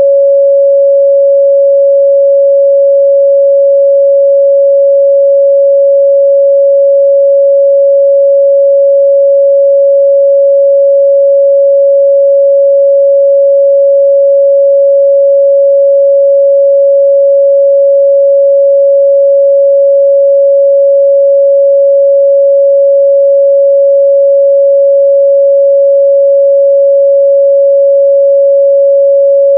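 Steady pure 557 Hz sine-wave test tone, one unchanging mid-range pitch with no other sound.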